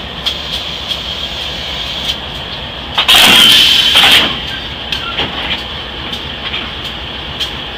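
Amtrak P42DC diesel locomotive's V16 engine idling steadily, with a light ticking, during coupling to the train. About three seconds in, a loud hiss of air lasts about a second.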